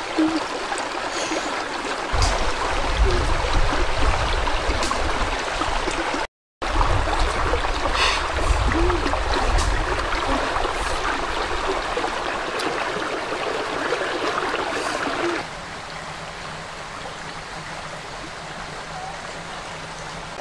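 Running stream water, a steady rush. It cuts out for a moment about six seconds in and turns quieter about fifteen seconds in.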